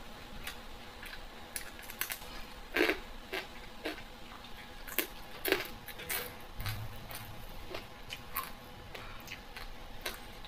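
Irregular light clicks and taps of utensils and dishes being handled during a meal, a few sharper ones in the middle.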